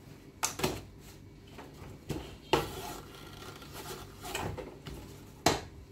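Electric roti maker being handled: its metal lid is swung shut and pressed down by the handle, giving several sharp clacks and knocks, the loudest about two and a half seconds in and near the end, over a low steady hum.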